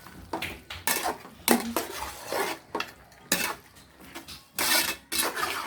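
A pot of chicken curry being stirred, the utensil scraping and clinking against the pot in a run of irregular strokes.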